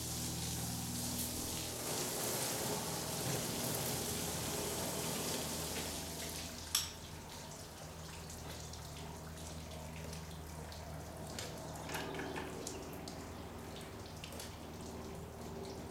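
Garden hose spraying water over a car's body, a steady hiss over a low steady hum. A sharp click comes about seven seconds in, then the spray is gone and only quieter dripping and splashing remain.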